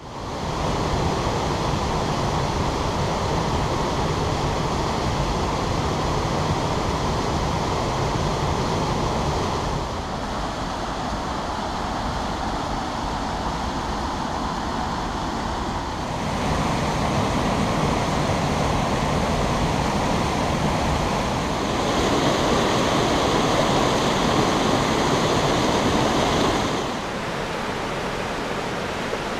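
Waterfall and mountain stream rushing over rocks in a steady, dense wash of water noise. The level and tone shift abruptly several times: quieter at about ten seconds, louder again from about sixteen and twenty-two seconds, and quieter near the end.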